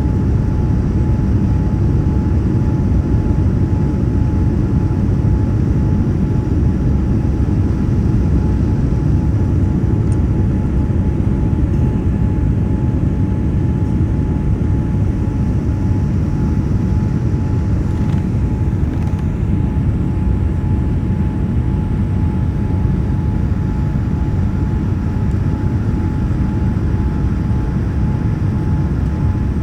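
Steady low rumble of a running vehicle, with a constant high hum over it.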